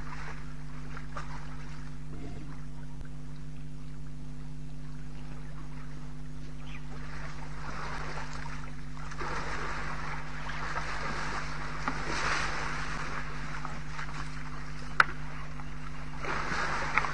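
Steady electrical hum with an even stack of low tones, with two swells of rushing noise, one in the middle and one near the end, and one sharp click about fifteen seconds in.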